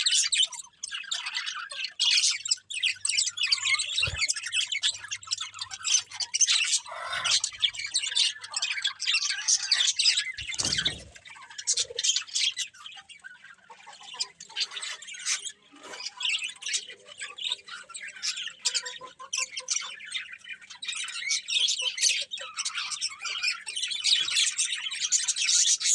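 Several small pet birds chirping and squawking continuously in a dense, busy chatter, with a couple of brief low knocks.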